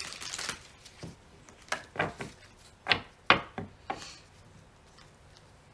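A deck of tarot cards shuffled by hand: the cards slap and tap against each other in a string of sharp, irregularly spaced clicks with short quiet gaps between.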